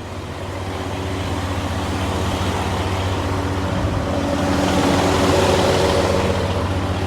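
Heavy truck engine idling with a steady hum, growing louder through the first half and easing slightly near the end.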